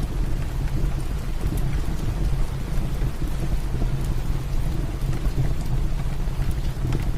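Heavy rain falling steadily, with a deep low rumble under it and a few faint crackles from a wood fire.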